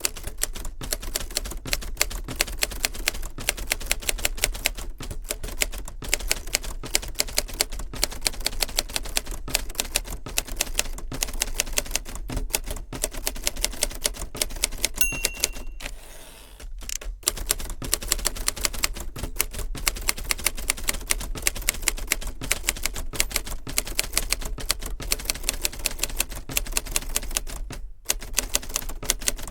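1963 Hermes 3000 manual typewriter typing rapidly, metal typebars striking the ribbon and platen in quick, uneven runs of keystrokes. About halfway through, a short bell ring marks the end of a line, followed by a brief pause in the typing.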